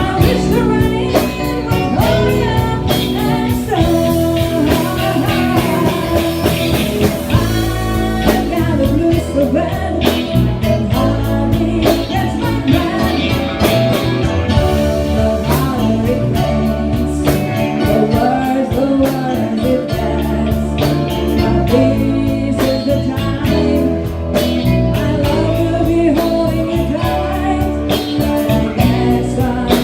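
A band playing a blues-rock song, with singing, guitar and drums.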